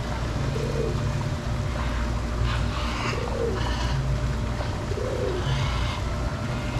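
A bird giving a short, low cooing call three times, about two seconds apart, with higher calls between them over a steady low rumble.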